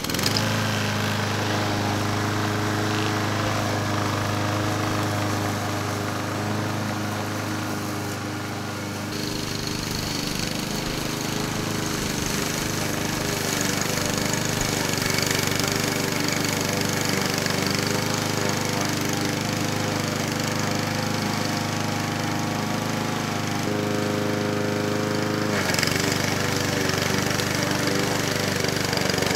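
Troy-Bilt TB160 push mower's 160cc Honda GCV160 single-cylinder engine running steadily while being pushed through tall grass, its tone changing abruptly about nine seconds in and again near the end.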